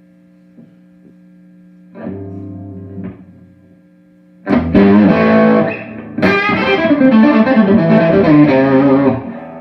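Distorted electric guitar played through an amplifier: a short chord about two seconds in, then loud riffing from about four and a half seconds in, with a brief gap near six seconds, its tone with some bite. A steady amp hum sits underneath.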